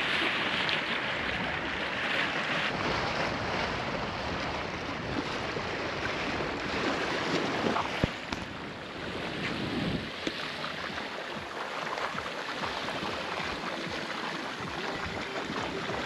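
Wind buffeting the microphone over the steady rush of water along the hull of a sailing yacht under way. A single sharp click sounds about eight seconds in.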